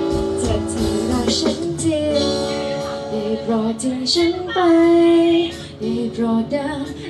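A woman singing a song live into a microphone, with a long held note about halfway through.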